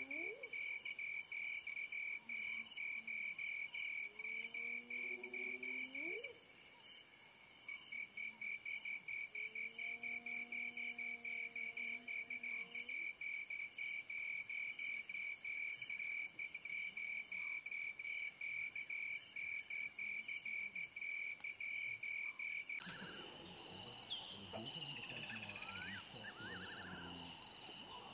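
Crickets chirping in a fast, steady pulsing trill, while spotted hyenas give three fainter whoops, each a rising call, in the first half. About 23 seconds in the sound changes to the bush at dawn: a higher insect drone with short bird calls.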